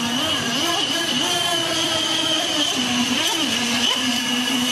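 Radio-controlled speedboat's motor running, its pitch stepping up and down several times as the throttle is opened and eased, with a steady high whine above it.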